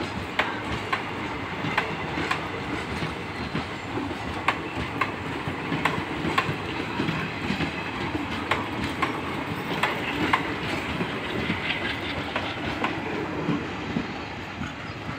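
ICF passenger coaches rolling past, their wheels clattering over the rail joints in a continuous clickety-clack. The sound begins to fade near the end as the last coaches move away.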